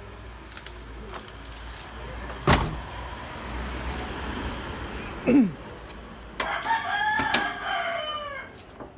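A rooster crowing once near the end, one long call. About two and a half seconds in there is a sharp knock, and a short falling squeak comes a little after five seconds.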